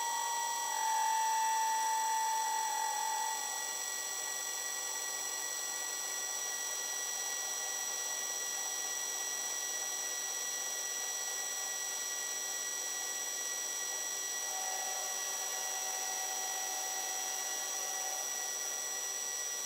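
Lathe facing a large metal flywheel disc: the machine's steady whine with a ringing hum from the disc, which is held only near its centre and close to chattering under a light cut. The hum is strongest for the first few seconds and comes back more faintly about three-quarters through.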